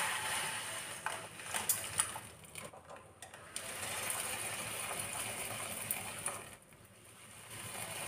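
Steel ladle stirring and scraping against the bottom and sides of a stainless steel pot of boiling milk, with irregular clinks during the first few seconds and a steadier scraping after that.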